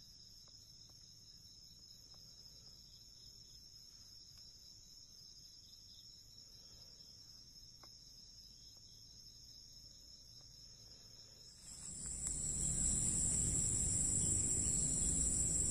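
Faint, steady chorus of insects, a continuous high-pitched shrilling in several even tones. About twelve seconds in it becomes much louder, with a strong high drone and low rustling noise underneath.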